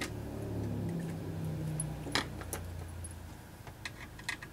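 Small metallic clicks and rattles of a screwdriver and screws working on a laptop's chassis, with a couple of sharp ticks about two seconds in and a cluster of clicks near the end. Under them is a low hum that dies away after about three seconds.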